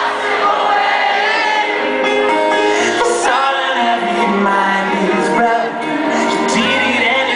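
Live pop band playing with layered sung vocals.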